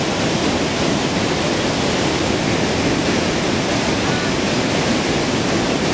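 Gullfoss waterfall, the Hvítá river plunging into its canyon: a loud, steady rush of falling water.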